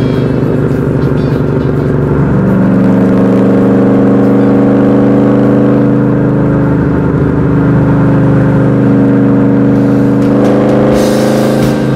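1971 Dodge Challenger's V8 engine and exhaust running at freeway speed with wind and road noise at the side-mounted microphone. The engine note holds a steady drone, steps up about two seconds in, and climbs again near the end as the car accelerates.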